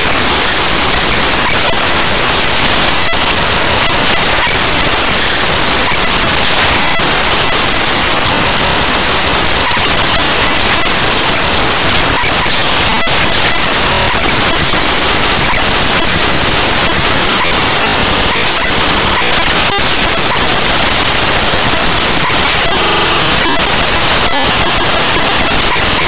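Loud, steady static: the raw bytes of the Cinebench 2024.1.0 executable played back directly as 8-bit mono audio at 32 kHz.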